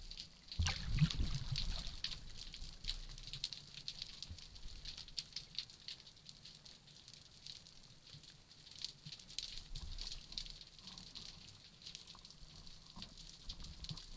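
Underwater crackling: a steady patter of small clicks and pops, heard through the camera's waterproof housing. About a second in, a louder low rumble with knocks stands out.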